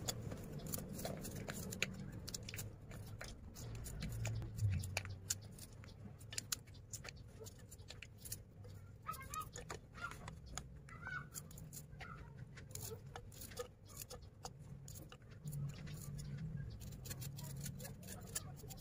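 Peeled garlic cloves and shallots being dropped by hand into a plastic blender jar: a scattered run of small clicks and taps over a low steady hum.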